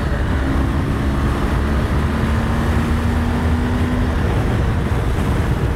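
Motorcycle riding at a steady speed: engine running with a steady hum, under heavy wind and road rumble on the bike-mounted camera's microphone.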